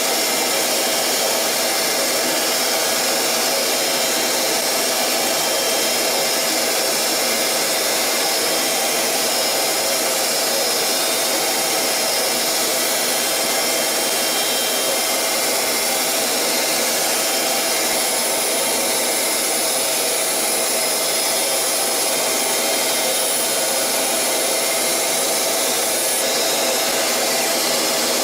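CNC lathe running: a steady, loud whirring hiss with a few steady tones. A high whine joins about two-thirds of the way in.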